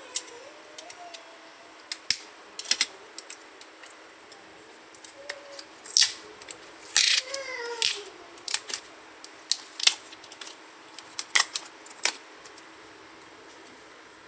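Blue PVC shrink wrap on a four-cell lithium-ion battery pack being slit with a utility knife and peeled off: irregular clicks, scrapes and plastic crinkling, with a longer scraping stretch about seven seconds in.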